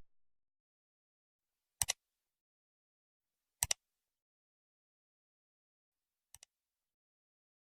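Near silence, broken by two short, sharp double clicks, one about two seconds in and one a little before four seconds, then a faint single click later on.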